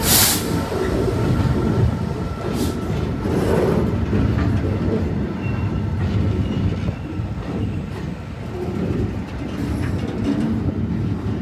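Freight train rolling past, its wagons rumbling steadily on the rails, with a sudden loud burst of noise at the very start.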